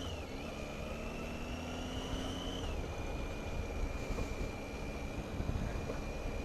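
Triumph Tiger motorcycle engine, heard through a helmet microphone with wind noise, pulling harder and rising in pitch, then dropping in pitch near the middle with a gear change and running on at a steady speed. The bike is decatted and runs its standard exhaust.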